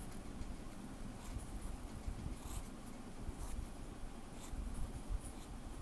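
Noodler's Ahab fountain pen's steel flex nib scratching across notebook paper as cursive letters are written, a series of short, irregular scratches.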